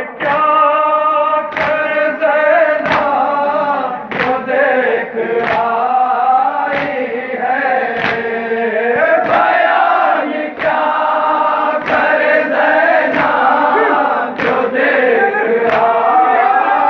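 A crowd of men chanting a Shia nauha (lament) together in a slow melody, led by a reciter, with a sharp beat of many hands striking chests in unison (matam) about every 1.3 seconds.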